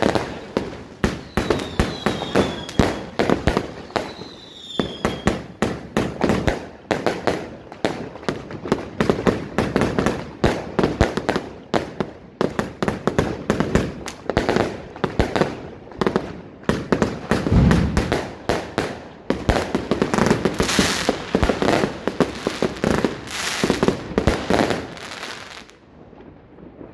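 Weco 'Time Machine' firework firing shot after shot: a rapid, dense run of sharp bangs and crackles, with a few short falling whistles in the first few seconds. It thins out briefly just before the end.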